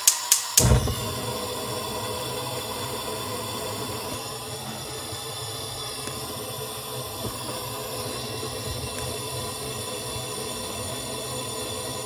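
A gas stove's spark igniter ticks a few more times at about four clicks a second. The burner catches about a second in and then burns with a steady hiss of gas flame.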